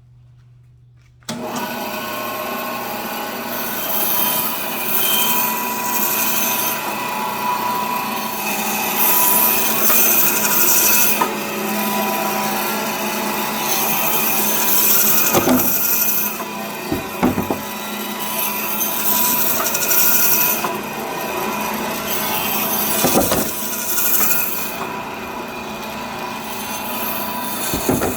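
LEM electric meat band saw switched on about a second in and running steadily. Its blade bites through beef rib bone in repeated cutting passes, slicing half-inch short ribs, with a few sharp knocks between passes.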